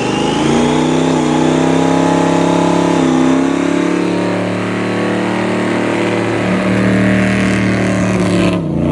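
Supercharged 496 big-block V8 with an 8-71 blower, through a 3.5-inch AERO exhaust, pulling under acceleration. Its note climbs for about three seconds, dips briefly as the automatic shifts, then holds loud and steady and stops abruptly at the very end.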